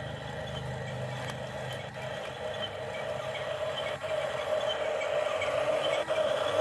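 Toy RC excavator's small electric motors and plastic gearing whirring steadily, growing louder over the last few seconds, with a low hum that fades out about two seconds in.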